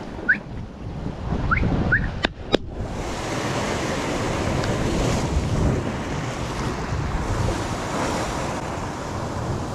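Sea waves washing against rocks, with wind buffeting the microphone, starting abruptly about three seconds in. Before that it is quieter, with a few short rising chirps and two sharp clicks.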